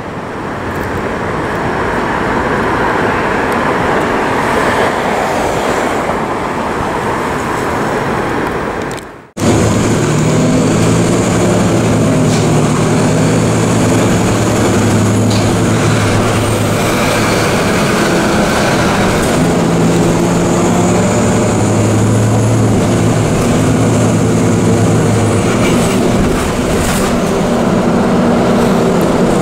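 New York City subway train running: a steady rumble, then after a sudden break about nine seconds in, a hum of low motor tones that shift in pitch, with a faint high whine rising and falling.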